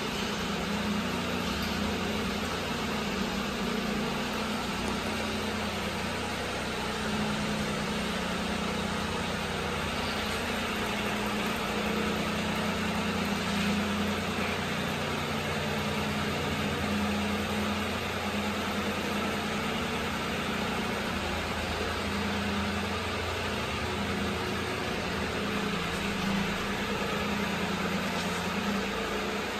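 A 1997 Daihatsu Hijet S110P kei truck's small three-cylinder engine idling steadily.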